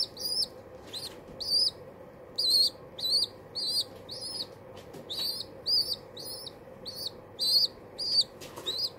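Baby pigeon (squab) begging with short, high-pitched squeaks, about two a second in an irregular run. It is a hungry begging call, still going after a big feed.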